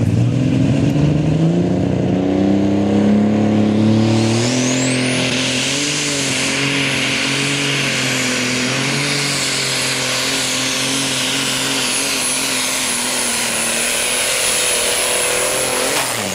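Modified pulling tractor's engine at full throttle hauling a weight-transfer sled. Its pitch climbs over the first few seconds, then a high whine rises about five seconds in and holds steady over the engine.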